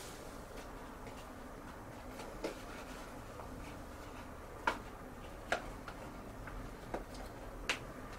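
About five short, sharp taps and clicks at uneven intervals, the loudest a little past the middle, as a Siamese kitten paws at and bites an animal-head mask, over a low room hum.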